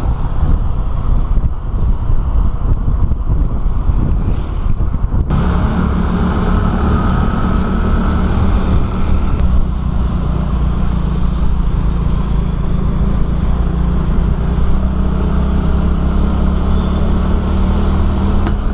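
Road vehicle on the move: a steady, loud low rumble. From about five seconds in, an even engine hum comes through and holds.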